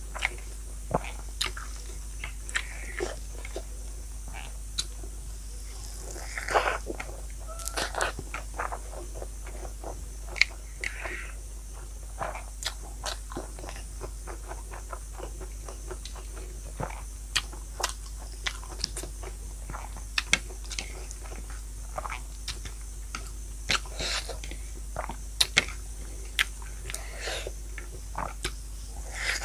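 A person eating close to the microphone: irregular crisp crunches and chewing clicks, a few louder bursts of crunching among them, over a faint steady low hum.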